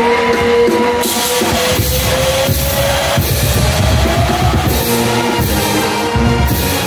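Loud rock music with a heavy drum kit playing over an arena sound system, with held gliding notes. Stretches of high hiss from the CO2 smoke jets firing sit over it.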